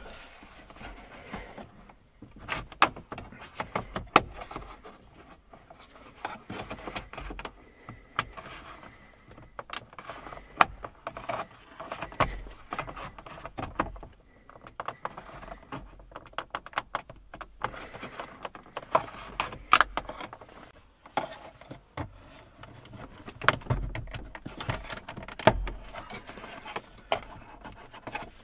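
Plastic dash trim bezel on a 2012 Ford Explorer's centre stack being worked loose with a plastic pry tool: irregular clicks and snaps of the tight retaining clips, with scraping and rubbing of plastic between them.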